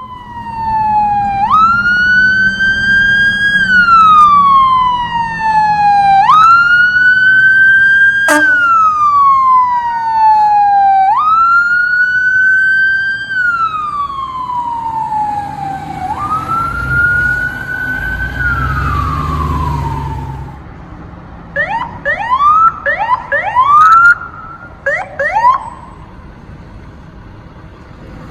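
Fire engine and ambulance sirens on an emergency response. A siren wails in cycles about five seconds long, each climbing quickly and falling away slowly. A heavy vehicle's engine rumbles past just before the twentieth second, then a string of short, quick rising whoops follows.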